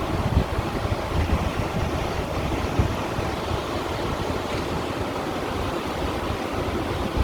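Small sea waves washing and lapping against shoreline stones in a continuous wash, with a louder slap nearly three seconds in. Wind rumbles low on the microphone.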